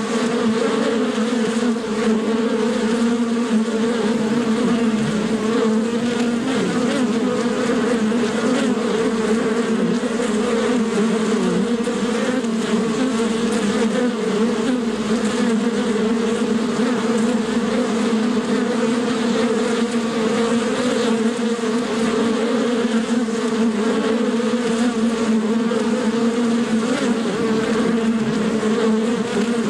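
Bees buzzing in flight: a steady, unbroken buzz that wavers slightly in pitch.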